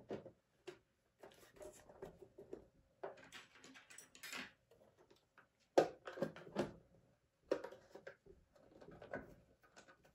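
Plastic battery cover on the underside of a Ninebot Max scooter deck being handled into place and screwed down with a Torx T15 driver: irregular clicks, knocks and scrapes, the sharpest knock about six seconds in.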